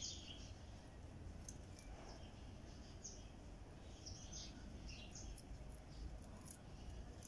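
Faint birds chirping now and then in short high calls over a low steady background rumble, with a few faint sharp clicks.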